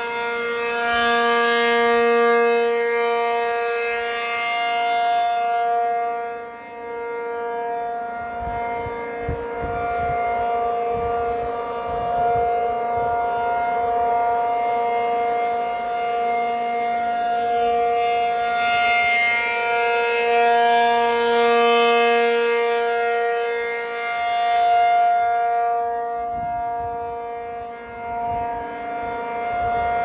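ACA P-50 rotating electromechanical outdoor warning siren sounding a steady alert tone. The pitch stays level while the sound swells and fades as the rotating horn turns toward and away, brightest around 2 s and again around 22 s.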